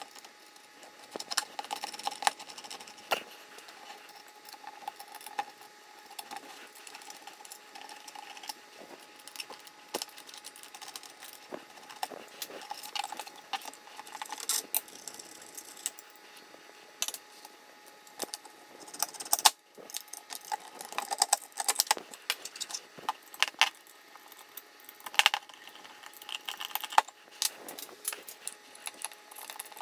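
Irregular metallic clinks, taps and rattles of hand-handled parts as a 3018 CNC's Y axis is taken apart: steel guide rods, the threaded lead screw, screws and hex keys knocking together and against the aluminium frame. A faint steady tone runs underneath.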